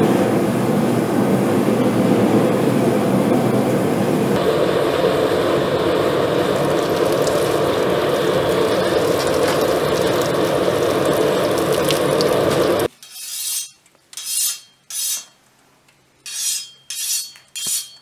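Red-hot steel blade, coated in furnace cement, quenched in a tank: a loud, steady sizzling and bubbling that shifts in tone about four seconds in and cuts off suddenly about thirteen seconds in. Then six short rasping strokes about half a second apart.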